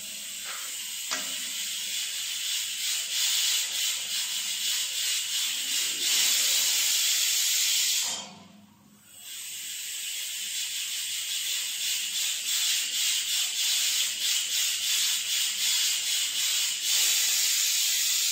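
Stovetop pressure cooker whistling: its weighted valve vents steam as a loud, rapidly pulsing hiss. The hiss stops for about a second partway through, then a second whistle starts and runs on.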